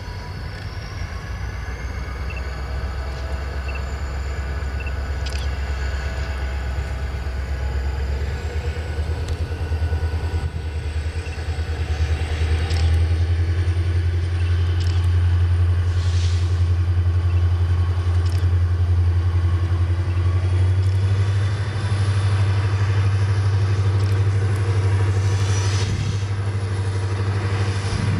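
Diesel-electric freight locomotive approaching slowly, its engine's low rumble growing louder as it nears, with a thin high whine slowly rising in pitch.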